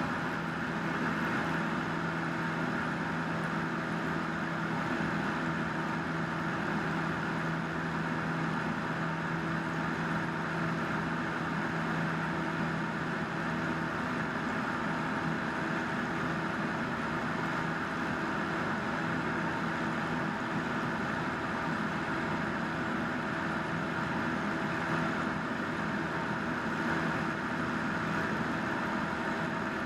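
Single-engine light airplane's piston engine and propeller running steadily in flight, heard from inside the cabin as an even, unchanging hum with a hiss of air over it.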